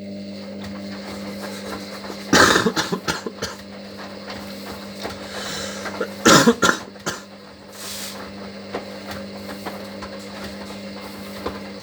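Hoover washer dryer's drum motor running with a steady hum as it turns the drum through one wash tumble, stopping near the end. Two louder, rough bursts come about two and a half and six seconds in.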